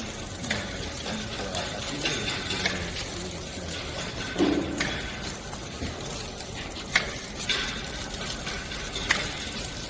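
Three-side sealing packaging machine running through its cycle, with a sharp click about every two seconds over a steady mechanical hum and short hissy passes between clicks.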